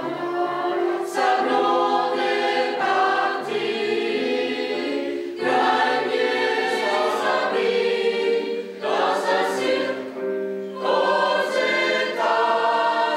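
Mixed church choir of men's and women's voices singing held chords, in phrases broken by short breaths.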